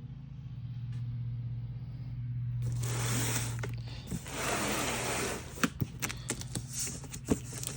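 Steady low hum, then from about three seconds in, rustling and scattered knocks and clicks of a boxed pair of jack stands being handled.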